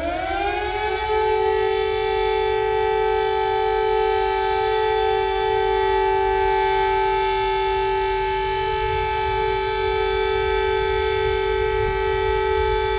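Civil defense siren winding up from a low pitch to a steady high tone within about the first second, then holding that single steady tone without rising and falling.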